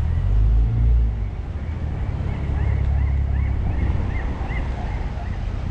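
Wind buffeting the microphone with a steady low rumble, strongest in the first second. In the middle a run of short high chirps repeats about three times a second.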